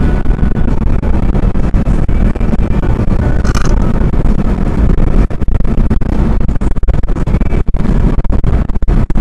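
Road and wind noise of a car at highway speed, heard from inside the cabin: a loud, steady low rumble.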